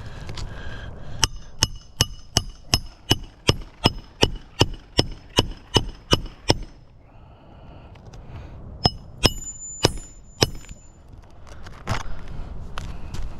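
Hammer driving a nail into an asphalt roof shingle: about fifteen quick, even ringing strikes, then after a pause four more.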